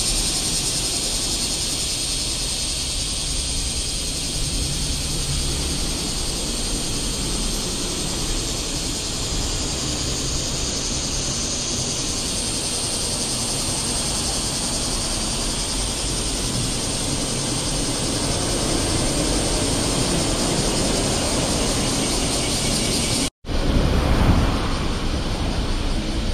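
Dense chorus of cicadas in summer trees, a loud, steady, high-pitched buzz. After a sudden cut near the end, traffic passes with a low rush under the thinner buzz.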